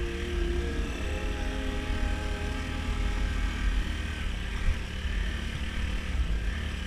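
Off-road vehicle's engine running with a steady low rumble.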